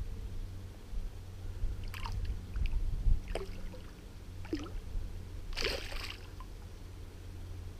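A hooked chub splashing at the surface in shallow water at the bank: a few short splashes and gurgles, then a bigger splash about six seconds in as a hand reaches into the water to land it. A low rumble runs underneath.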